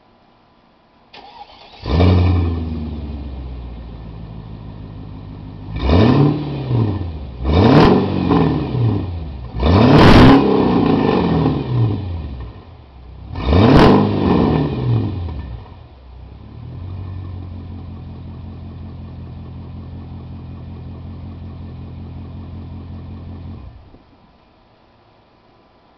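Mercedes-Benz E430's V8 exhaust, straight-piped with no catalytic converters. It starts about two seconds in and settles to idle. It is revved four times, the longest and loudest rev about ten seconds in, then idles steadily and shuts off near the end.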